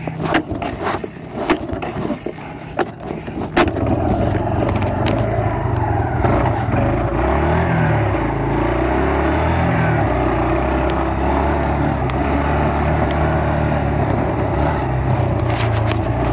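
Knocks and scrapes of the camera being handled, then from about four seconds in an off-road vehicle's engine running steadily under way, revving up briefly twice midway.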